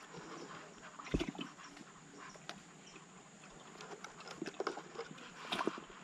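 Scattered soft clicks and rustles of hands handling fishing tackle and bait, with a few sharper knocks about a second in and near the end, over a steady faint high hiss.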